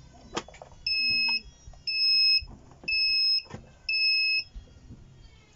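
POS-9200-L thermal label printer's buzzer beeping four times, about once a second, each beep a short high steady tone. A few sharp plastic clicks from the printer being handled fall between the beeps.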